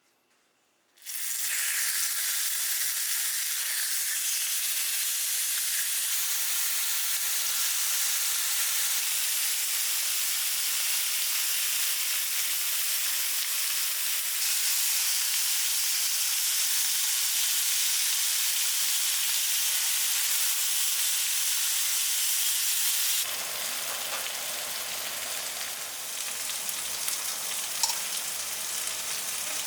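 Food frying in hot oil in a pan: a steady sizzle that starts suddenly about a second in. It shifts in strength a few times and turns quieter after about 23 seconds, with a light click near the end.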